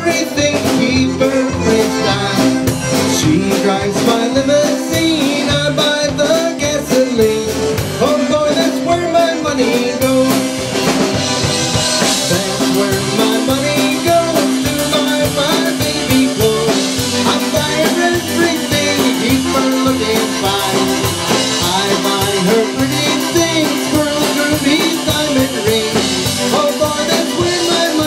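Live band playing a song: a man sings lead into a microphone over drums and a steady band backing.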